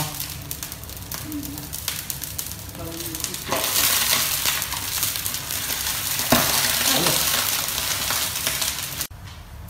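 A whole carp laid into hot oil in a large wok, hot oil sizzling. The sizzle grows much louder about three and a half seconds in as the fish goes into the oil, then cuts off suddenly near the end.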